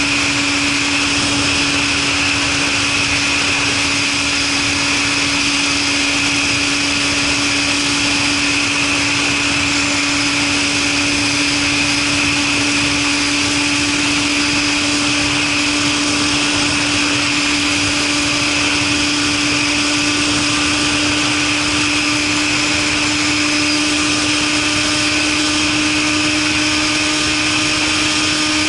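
Suzuki Katana motorcycle engine running at a steady cruise through an aftermarket Super Combat muffler. A steady engine hum creeps slightly higher in pitch under a constant rushing noise.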